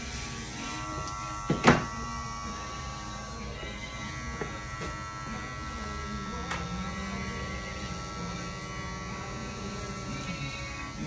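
Electric hair clippers running with a steady buzz during a barbershop trim. A single short, loud sound cuts in briefly about two seconds in.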